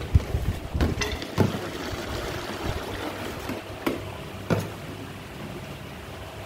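Two-nozzle engine oil filling machine running with a steady hum, with several sharp knocks of plastic 1-litre oil bottles being set down and swapped under the nozzles. The knocks bunch up in the first second and a half, with two more about four and four and a half seconds in.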